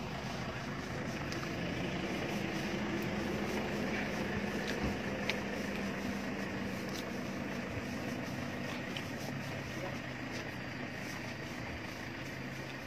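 A vehicle engine running steadily, with indistinct voices in the background.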